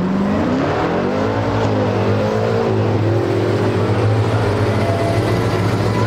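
1968 Plymouth GTX's 440 V8 running as the car drives past. The engine note rises in the first second, dips and swells through the middle, then holds steady.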